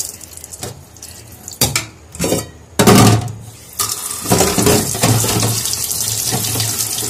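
Kitchen tap running into a pan in a stainless-steel sink. Partway through come a few loud knocks and clatters as pots are shifted in the sink, the loudest about three seconds in. After that a steady stream splashes into the pan as it is rinsed out by hand.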